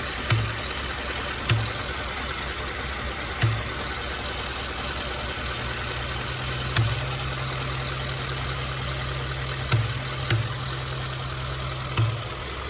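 2015 Ford F-150's 5.0 V8 idling steadily, with a low thump at irregular intervals, seven in all. The owner hears it as air popping or being sucked in at the intake and throttle body. A new PCV valve and hose have not cured it.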